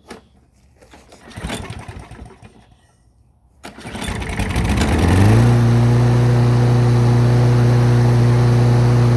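Lawn mower's small engine being pull-started: a first noisy effort about a second and a half in, then about three and a half seconds in it catches, rises in pitch and settles into steady running. It fires up after being tipped on its nose and primed, having refused to start before.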